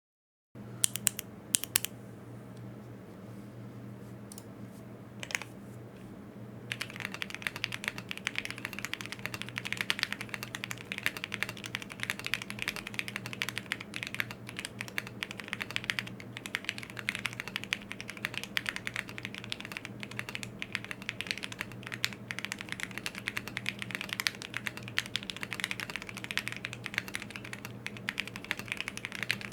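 Typing on a plateless Thera75 custom mechanical keyboard with Thic Thock Marshmallow switches. A few isolated keystrokes at first, then fast, continuous typing from about seven seconds in, over a faint low hum.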